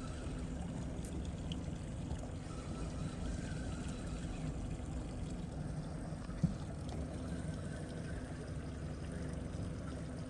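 Water trickling and lapping around a small fishing boat, with a single short knock about six and a half seconds in.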